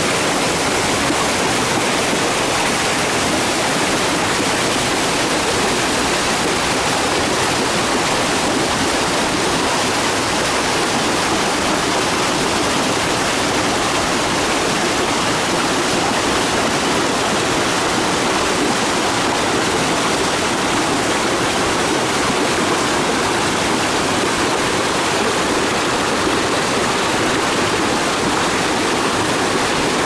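Mountain stream pouring down a rocky cascade: a steady, unbroken rush of falling water.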